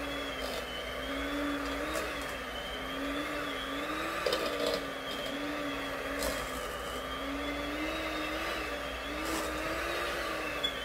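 Electric hand mixer running steadily, its beaters whipping a pot of boiled potatoes with butter and cream. The whine wavers slightly in pitch as the load on the beaters changes, with a few short knocks of the beaters against the stainless steel pot.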